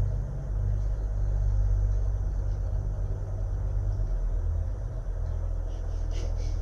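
A steady deep rumble, like a low drone or distant engine, with a faint hiss over it; its low tones shift slightly every second or so.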